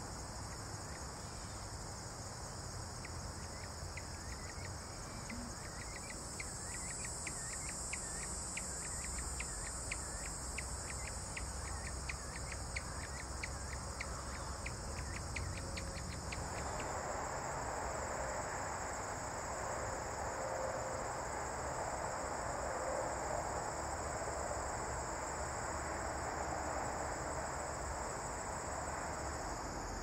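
Late-summer insect chorus of crickets: a steady, high-pitched shrilling. A run of sharp ticks, about three or four a second, repeats through the first half and stops about halfway. A louder, rougher hiss comes in at that point.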